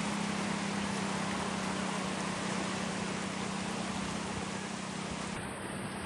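Sea surf washing steadily on a beach, with a steady low engine-like hum over it.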